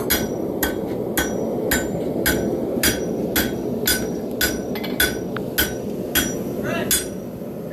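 Blacksmith's hammer striking hot steel on an anvil, steady blows about two a second with a ringing clang on each, stopping near the end. Under them a gas forge burner is running with a steady roar.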